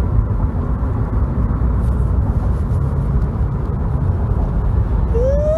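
Steady low road and engine rumble inside a moving car's cabin at highway speed. Near the end a voice starts one long, held exclamation.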